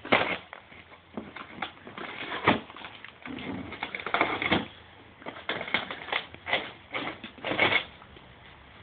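A dog ripping and crunching a cardboard box with its teeth, tearing open a carton of dog food in a string of irregular rips.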